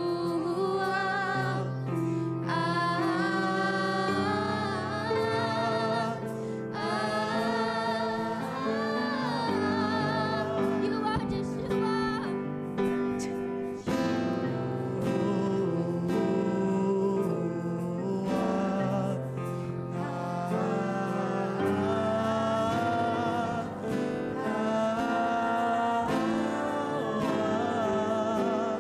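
Gospel worship song: voices singing long, wavering notes over steady held chords from the accompaniment.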